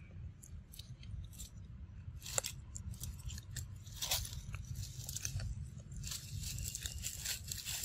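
A macaque chewing and biting fruit close to the microphone: irregular crisp crunches and clicks, heaviest about four seconds in and from about six seconds on, over a low steady rumble.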